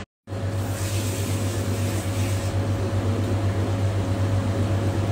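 Steady low mechanical hum, like a kitchen extractor fan or appliance, over a pan of chicken simmering in sauce on the stove, with a faint hiss about a second in. The sound cuts out briefly just after the start.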